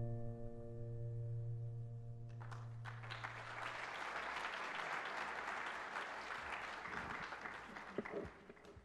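The held closing chord of a piece of music fades out over the first few seconds. From about two and a half seconds in, an audience claps, and the applause dies away near the end.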